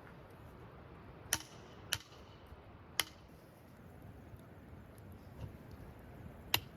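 Four short, sharp clicks or light knocks, each with a brief ring, at uneven intervals over a faint steady hiss.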